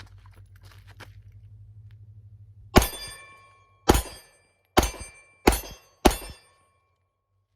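Five shots from a Glock 19 9mm pistol firing FMJ rounds, the first about three seconds in and the rest coming quicker, each with a brief ringing tail.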